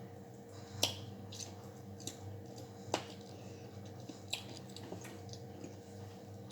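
Close-up chewing of chicken feet adobo: wet mouth sounds with irregular sharp smacks and clicks, the loudest a little under a second in and again about three seconds in, over a faint steady hum.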